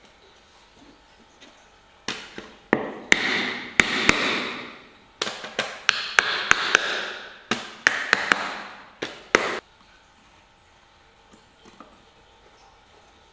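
Wooden block tapped down onto the half-lap joints of a pine kumiko lattice, seating the notched strips into each other: a run of sharp wooden knocks with scraping between them, starting about two seconds in and stopping before the last few seconds.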